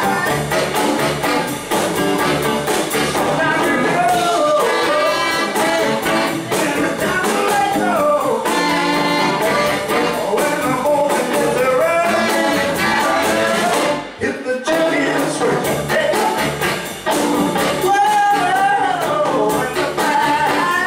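Live rhythm-and-blues band playing: electric guitar, tenor and baritone saxophones, upright bass, drums and keyboard. The band stops for a short break about two thirds of the way through, then comes back in.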